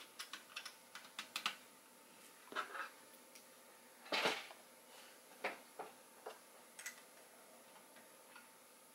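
Plastic LEGO parts of a Voltron model clicking and clacking as they are handled and pushed together. A run of quick clicks comes in the first second and a half, a louder clack about four seconds in, then a few scattered clicks.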